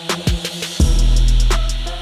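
Background music with a drum-machine beat and deep bass; the bass and kick come back in strongly just under a second in.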